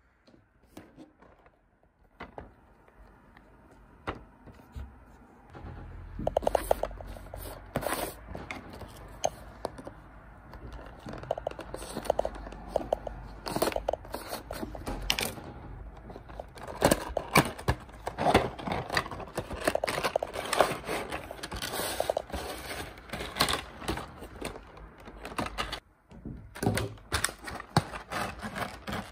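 Handling noise from unboxing a cardboard model box: a few soft taps at first, then from about six seconds in a long irregular run of scrapes, clicks and rustles as a blade is run along the box and the clear plastic packaging inside is handled.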